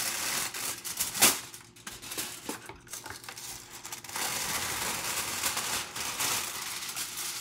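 Reynolds Wrap aluminium foil crinkling and rustling as a sheet is pulled from the roll, torn off at the box's cutting edge and handled, with a sharp snap about a second in.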